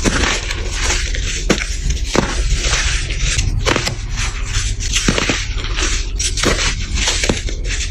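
Crispy, hardened black baking soda being crushed: a steady crumbling crunch broken by irregular sharp snaps as pieces break apart.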